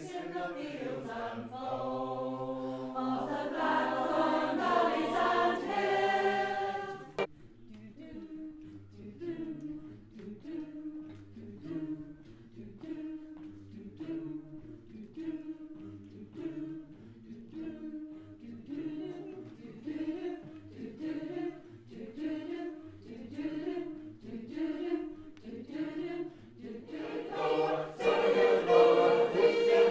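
Mixed amateur choir singing unaccompanied in several parts. Loud held chords for the first seven seconds break off suddenly, followed by a quieter passage of short repeated notes, and loud sustained chords return near the end.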